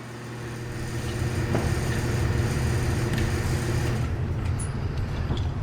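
Rheem Classic central air conditioner condenser running: a steady low hum from its Copeland scroll compressor under the whoosh of its condenser fan, growing louder over the first couple of seconds, then holding steady.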